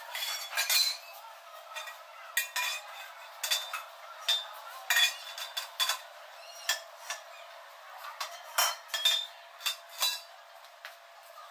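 Lengths of square steel tubing clanking and clinking as they are set down and shifted on a concrete floor: a long run of sharp metallic knocks, each ringing briefly.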